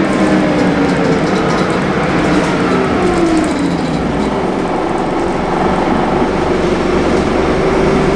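Scania L94UB bus heard from inside the cabin while driving: a steady engine and road drone with rattling from the interior fittings, and a whine that falls in pitch about three seconds in.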